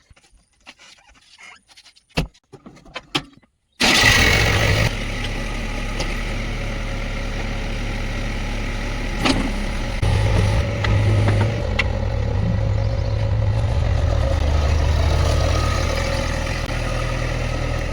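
Diesel engine of a JCB 3DX backhoe loader running steadily, coming in abruptly about four seconds in after a few faint clicks, and swelling briefly around ten seconds in.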